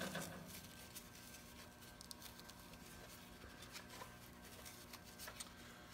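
Faint handling noise: soft rustling and a few light ticks as nylon harness webbing is worked through a metal seatbelt adjuster buckle.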